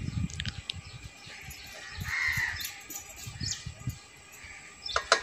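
A bird giving one rough call about two seconds in, over faint low rumble, with a short sharp click near the end.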